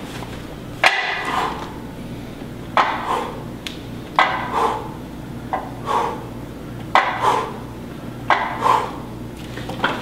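Plate-loaded lever arm of a Powertec Workbench Multisystem clanking on each rep of a close-grip press, about every one and a half seconds, each knock followed by a short breathy sound.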